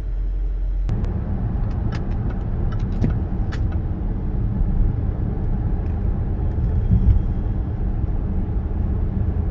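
Road and engine noise inside a moving Range Rover's cabin, with a few light clicks between about one and four seconds in. A faint grinding from the steering, which the owner suspects is the electric power-steering rack, is described as small and not that loud.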